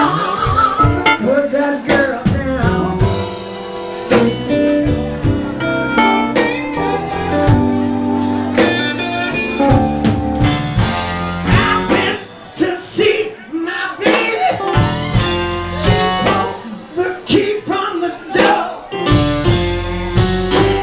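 Live blues band playing: electric guitar, keyboard and drums, with a man singing into a microphone.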